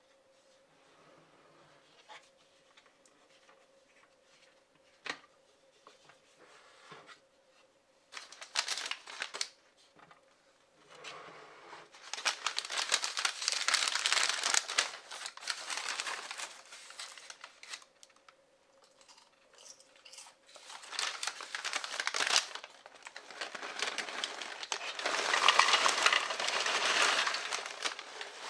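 A few light clicks of a plastic popcorn bucket being handled, then a brown kraft-paper bag crinkling and rustling in several long stretches as it is unfolded and opened. Near the end popcorn is tipped from the paper bag into the plastic bucket amid the loudest rustling.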